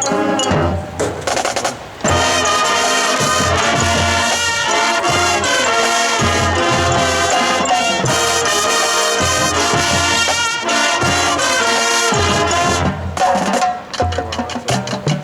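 Marching band performing a field show: brass section (trumpets and trombones) playing loud chords over drums, with a brief drop about two seconds in before the full band comes back in.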